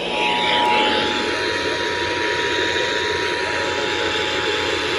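Emergency Alert System attention signal: the steady two-tone 853 and 960 Hz alarm, received over a broadcast with a heavy hiss of static.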